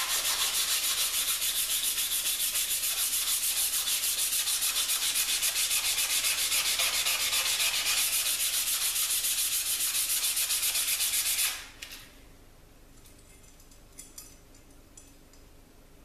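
Fine 600-grit sandpaper rubbed by hand on a steel knife blade in rapid back-and-forth strokes, cleaning the blade between etches. The rubbing stops abruptly about three-quarters of the way through, leaving a few faint clicks.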